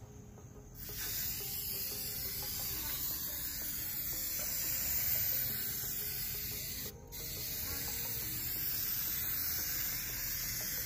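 Aerosol tire-shine spray hissing from the can's nozzle onto a tire sidewall. The hiss starts about a second in, breaks off briefly about seven seconds in, then resumes.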